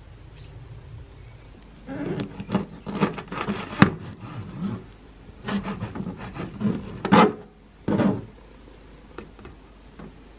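Kitchen knife chopping boiled shepherd's purse greens on a plastic cutting board. The quick strokes come in two runs starting about two seconds in, followed by a few light taps near the end.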